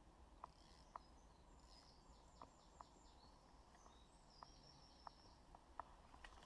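Near silence, with faint birdsong in a run of short high notes and a few soft, isolated ticks.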